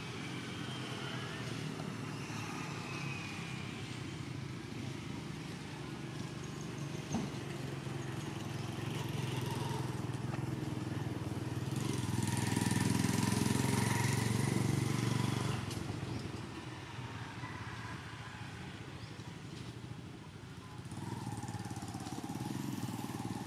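Steady low engine rumble that swells for a few seconds past the middle, like a motor vehicle running.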